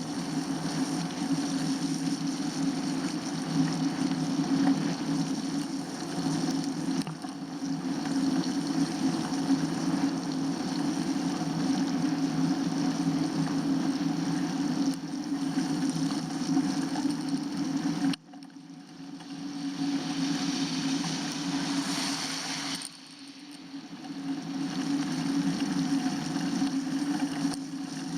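Steady rushing, humming noise of a bicycle being ridden on a winter road, from wind and tyres. It cuts out suddenly twice, a little after halfway and again about five seconds later, and builds back up each time.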